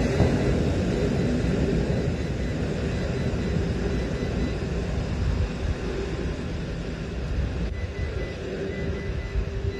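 Airbus A380's four jet engines running with a low rumble and a steady hum, slowly fading as the airliner rolls away.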